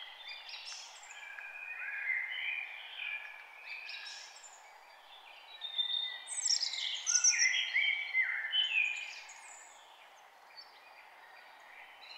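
Several songbirds singing, with overlapping whistled phrases that step and fall in pitch, over a steady background hiss. The loudest stretch is a cluster of quick falling notes from about six to nine seconds in.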